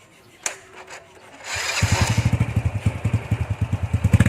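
Honda Wave 100 Alpha's single-cylinder four-stroke engine starting up through an aftermarket organ pipe exhaust: a click, then it catches about a second and a half in and settles into a loud idle with rapid, even exhaust beats.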